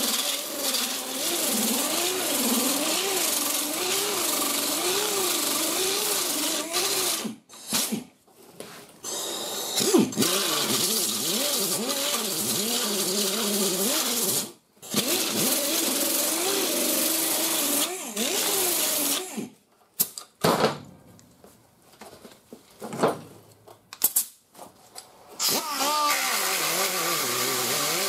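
Handheld grinder/sander with a 36-grit fiber resin disc grinding paint and rust off a steel wheel arch, its motor pitch wavering as the disc is pressed and eased off. It stops briefly a couple of times and is mostly off for several seconds past the middle before starting again.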